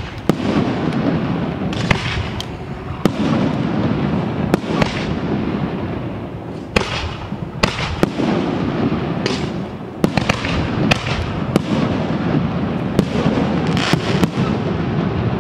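Fireworks display: aerial shells bursting one after another in sharp, irregular bangs, often several a second, over a continuous low rumble. Some bursts trail off in a brief crackling hiss.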